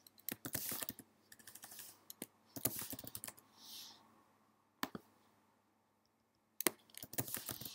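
Computer keyboard and mouse clicking in quick clusters of key taps, with a short soft hiss a little past halfway and a pause of about a second and a half before the clicking resumes near the end.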